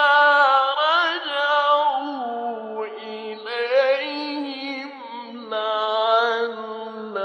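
A male reciter chanting the Quran in the melodic tajwid style, holding long ornamented notes that bend and waver. The phrases break briefly about three seconds in and again past five seconds, and the pitch steps down about two seconds in.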